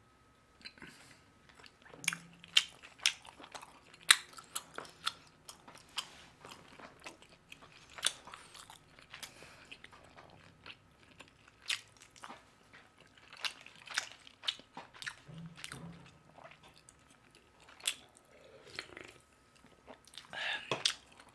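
Close-miked crunching and chewing of fried chicken: crisp, irregular crackles of the batter breaking between the teeth, with a few sharper crunches.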